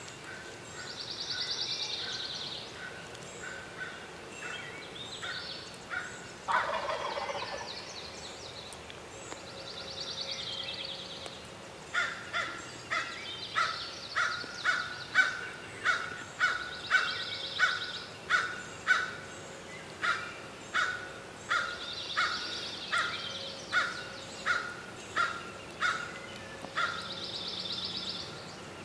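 Wild turkey gobbler gobbling once, about six seconds in, answering the hunter's calling. Around it are birdsong trills, and for much of the second half a bird's sharp note repeats about one and a half times a second. These repeated notes are the loudest sounds.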